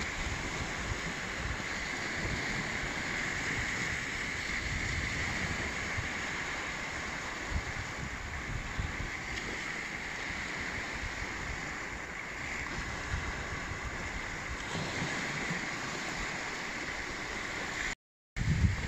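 Small waves breaking and washing up a sandy beach, a steady surf hiss, with wind rumbling on the microphone. The sound cuts out briefly near the end.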